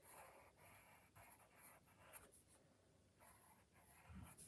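Faint scratching of a pen on paper in short strokes as letters are traced over in an exercise book.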